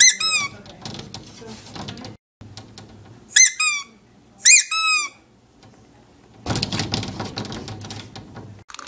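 A handheld rubber squeeze toy squeaking: three squeezes, each giving a pair of short, high squeaks that fall in pitch. Near the end comes about two seconds of scratchy rustling.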